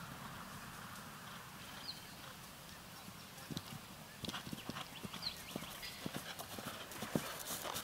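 A horse's hoofbeats on dry, hard arena ground, starting about three and a half seconds in and growing louder and quicker as the horse comes closer.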